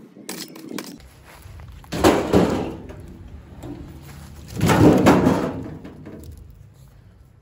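Cut tree branches and log pieces being dropped onto a metal hand cart: two loud knocks with a brief rattle, about three seconds apart.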